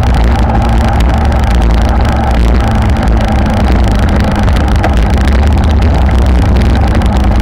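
Wind rushing over the microphone and the tyres of a pack of road racing bikes rumbling over brick pavers at about 45 km/h, a loud steady noise.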